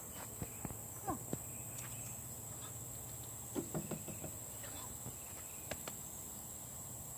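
Steady high-pitched drone of insects, with a few brief, faint cries that fall in pitch, about a second in and again near the middle.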